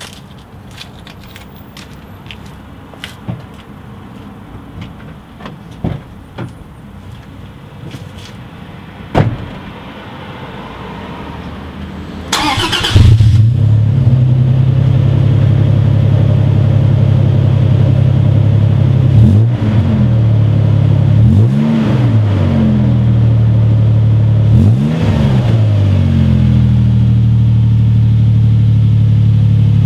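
2014 Toyota Tacoma's 4.0-litre V6 breathing through a TRD exhaust. After a few quiet clicks and knocks, the starter cranks about twelve seconds in and the engine catches and settles into a steady idle. Three short throttle blips follow, each rising and falling in pitch, and then it idles on.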